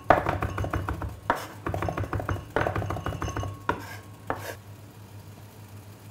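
A knife rapidly chopping fresh rosemary on a plastic cutting board, the palm pressing on the blade, in quick runs of taps. There are three runs in the first three and a half seconds, then two single knocks before it stops.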